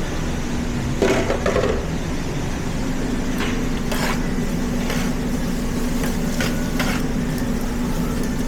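A steady low mechanical hum, like an engine or motor running, with a few brief rustles and knocks over it, the loudest a short cluster about a second in.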